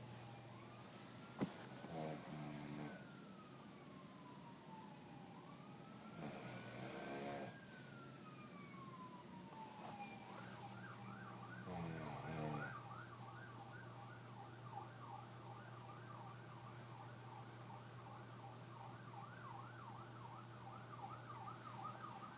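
A man snoring three times, a few seconds apart, over an emergency-vehicle siren that wails slowly up and down and switches to a rapid yelp about ten seconds in. A steady low hum runs underneath.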